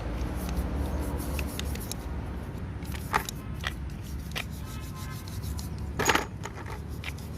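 Small metal parts clinking on a hard surface: a few light clicks, then one louder clatter about six seconds in, with a faint metallic ring. A steady low hum runs underneath.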